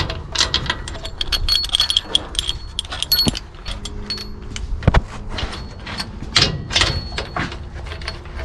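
Irregular metallic clinks, taps and scrapes of a seal puller being hooked into an old axle seal and worked against the steel axle housing, some clinks ringing briefly, with a sharper knock about five seconds in.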